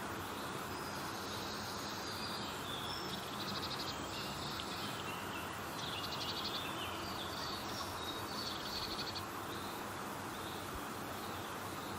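Birds singing, with short chirping phrases and quick trills that come and go, over a steady background hiss.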